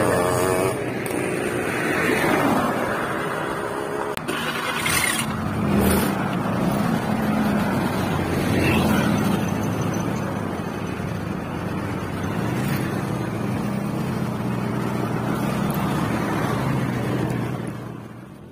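Motorcycle engine running steadily while riding along a road, with wind and road noise; the sound fades out near the end.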